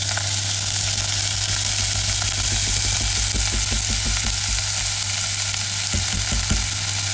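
Shelled river clam meat sizzling in hot fat and shallots as it is tipped from a plastic colander into a pot and stirred with chopsticks. A steady frying hiss, with a run of low knocks through the middle and again near the end.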